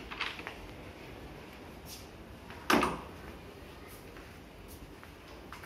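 A wooden interior door being opened: a few faint latch clicks, then one sharp knock about two and a half seconds in.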